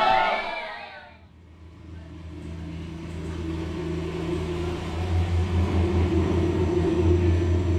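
A low droning musical pad with several held low notes swells in and builds after a voice breaks off in the first second, taking on a slight pulsing in its second half.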